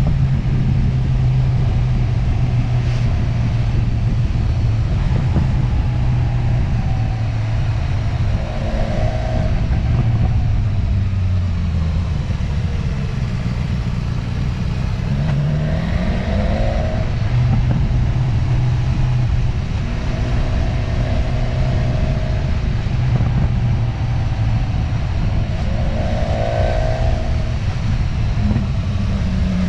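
Motorcycle engine running steadily, its pitch rising and falling with the throttle several times.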